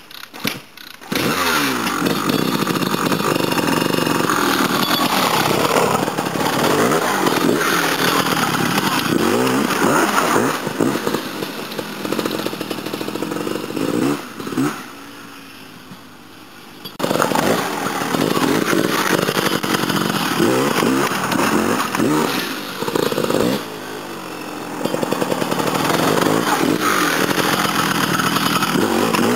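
Trials motorcycle engine revving in repeated short rising and falling blips as it works over boulders. It drops to a much quieter idle about halfway through, then revs hard again.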